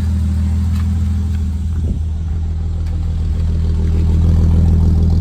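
Holden VS Commodore's 3.8-litre Ecotec V6 idling steadily through a 2.5-inch exhaust, growing slightly louder in the second half.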